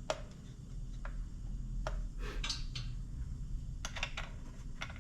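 Scattered light clicks and metal taps of scope-mount rings being fitted and tightened onto an airsoft rifle, coming irregularly, with a few close together about two and a half seconds in and again near four seconds.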